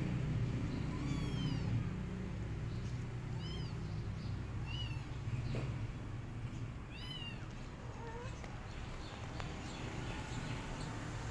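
Young kittens mewing: a few short, high-pitched, arching mews, over a steady low hum.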